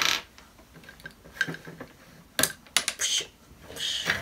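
Hard plastic LEGO pieces clicking and clattering as the models are handled: a few separate sharp clicks, then a quick cluster of them, with short rattling bursts at the start and near the end.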